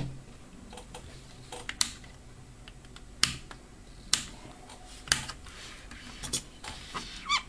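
Scattered sharp clicks as the power supply's plastic front-panel rocker switches are pressed and its open plastic case is handled, about half a dozen clicks at uneven intervals.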